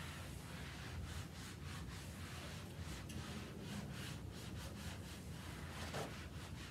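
Whiteboard eraser wiping marker off a whiteboard: a faint scrubbing in quick back-and-forth strokes, about two to three a second.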